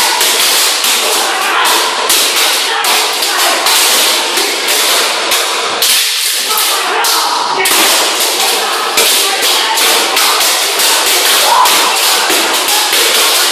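Swords striking round metal shields in a kalaripayattu sword-and-shield bout: rapid, irregular metallic clashes, several a second, with a brief lull about six seconds in.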